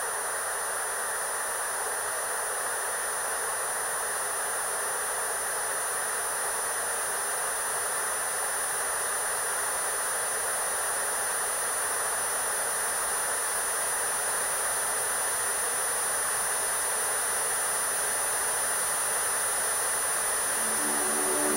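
Filtered white noise for tinnitus sound therapy: a steady hiss confined to a mid-range band, with a quieter high hiss and a few faint steady high tones above it. It grows slowly louder, and musical tones begin near the end.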